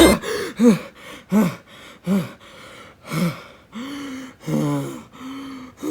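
A person's voice imitating hiccups: four short 'hic' sounds, each rising and falling in pitch, about two-thirds of a second apart. Then come three longer, steady held vocal tones.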